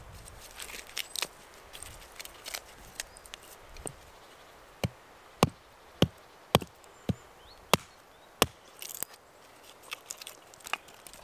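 Small hand axe chopping and splitting a small log on a wooden chopping block. Light scraping and taps at first, then about seven sharp chops roughly two-thirds of a second apart from about five seconds in, then a few lighter taps near the end.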